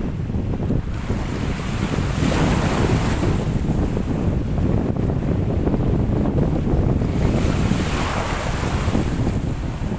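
Choppy sea waves washing and splashing, with heavy wind buffeting the microphone. The wash swells up a couple of seconds in and again near the end.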